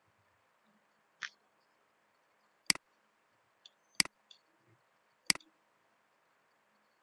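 Computer mouse button clicking: three sharp clicks about a second and a quarter apart, each a quick press-and-release double, with a softer click just over a second in.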